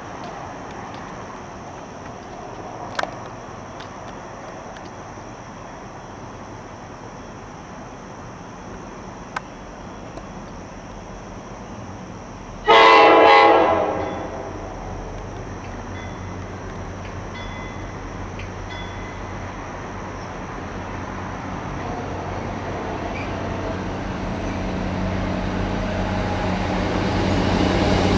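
MARC push-pull commuter train approaching, cab car leading: one horn blast of about a second and a half near the middle, then the rumble of the train growing steadily louder as it nears and passes close by.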